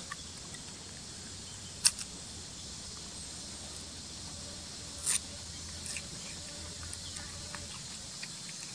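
Outdoor background with a steady high hiss, broken by two sharp clicks about three seconds apart, then a scatter of faint ticks.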